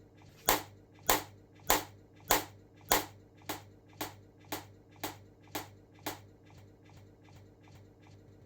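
Mouth smacking while tasting the mixture: a steady run of short wet clicks, about one and a half a second, growing fainter and stopping about six seconds in.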